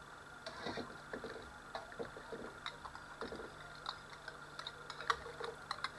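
Faint, irregular clicks and scrapes of a ladle knocking and scraping against a glass bowl and a stainless steel pot while tomato ketchup is scooped from the bowl and stirred into the liquid.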